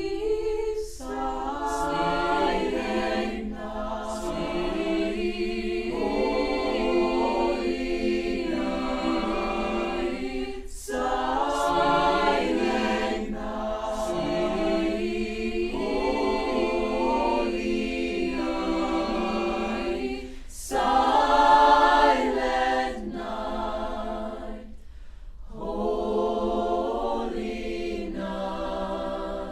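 Student choir singing a cappella, in phrases separated by brief pauses.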